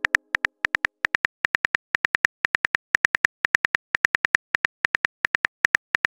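Phone keyboard typing sound effect: a run of short, crisp key clicks, about six a second and slightly uneven in spacing, with silence between them.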